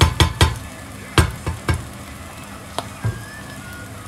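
Chanterelles frying in a pan, stirred with a utensil that clacks against the pan: a quick run of knocks at the start, a few more about a second in and two near three seconds, over a steady sizzle.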